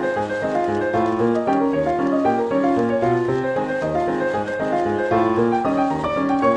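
Piano music: a brisk run of short notes, several a second, at an even pace.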